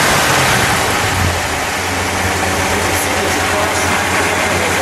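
The 413 cubic-inch cross-ram V8 of a 1960 Chrysler 300F, with twin four-barrel carburettors, running just after being started. It settles into a steady idle about two seconds in.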